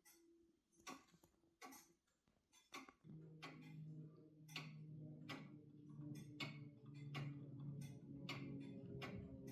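Pendulum clock ticking about once a second; about three seconds in, the clock's pipe organ starts sounding soft, sustained low notes that change pitch under the ticking.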